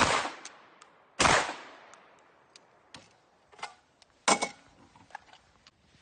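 Two 12-gauge shotgun shots from a Rock Island Armory VR80 semi-automatic, about a second apart, each echoing away. They are followed by a few sharper, shorter cracks and clanks, the loudest about four seconds in with a brief ringing tone.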